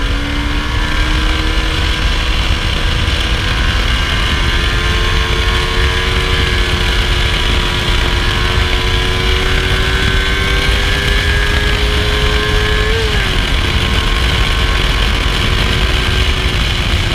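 Yamaha YZF-R25's 249 cc parallel-twin engine running on its stock exhaust under way, its pitch rising slowly. About 13 seconds in there is a brief blip and a small drop in pitch, then it holds steady. A heavy low rumble runs underneath.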